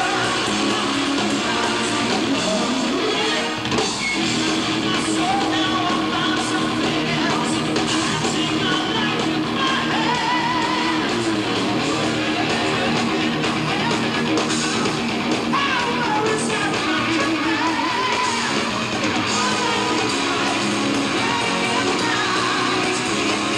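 Heavy-metal band playing live, with electric guitar to the fore.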